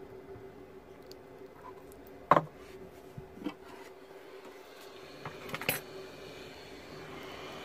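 A few sharp clicks and knocks of small tools being handled on a workbench, the loudest about two seconds in and two more close together near the end, over a steady low hum.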